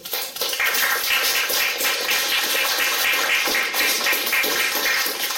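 Audience applauding: dense, steady clapping that rises in at once and stays level.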